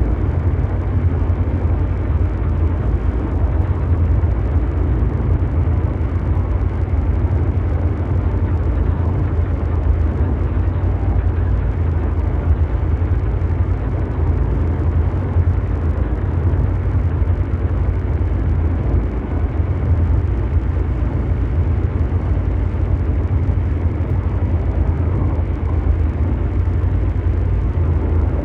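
Ambient mechanical drone noise: a steady, deep rumble with a brown-noise hiss above it, unchanging throughout.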